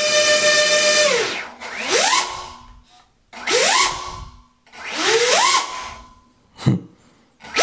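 Two brushless drone motors spinning air propellers: a steady high whine that is throttled off about a second in, then three quick blips of throttle, each whine climbing in pitch, holding briefly and falling away as the propellers spin down, with a short sharp blip near the end.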